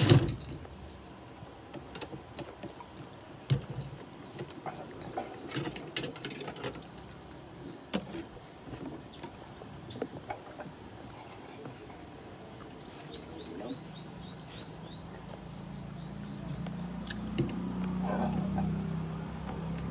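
Close-up eating sounds: chewing and lip smacking on fried chicken and rice eaten by hand, with scattered short clicks. Small birds chirp in quick runs of short calls partway through, and a low hum grows louder near the end.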